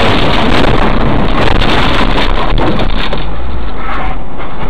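Loud, steady rushing noise of a moving vehicle, road and wind noise picked up by a dashcam microphone, with no distinct impact.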